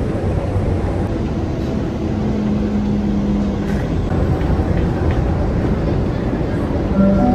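Commuter train running, heard from inside the carriage: a steady low rumble of the ride, with a low hum swelling for a couple of seconds about two seconds in.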